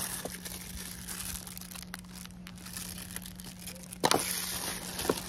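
Clear plastic packaging bags crinkling and rustling as hands handle them, with a sharper, louder rustle about four seconds in.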